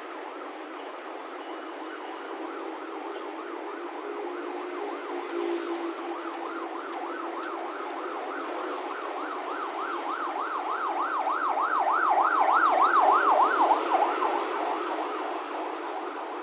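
Emergency vehicle siren in a fast up-and-down yelp, growing louder as it approaches, loudest near the end, then fading as it passes, over steady city traffic noise.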